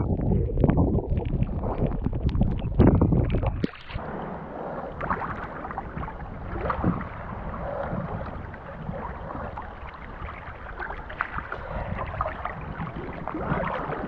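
Loud, low rumbling splashing of water for nearly four seconds, cutting off suddenly, then softer water lapping and gurgling.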